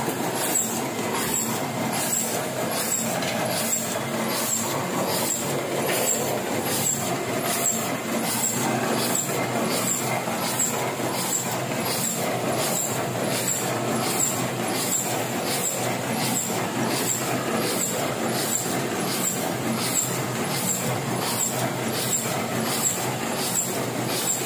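Heidelberg sheet-fed offset printing press running at production speed, its mechanism clattering steadily with a regular beat about twice a second as the chain-delivery grippers carry printed sheets onto the pile.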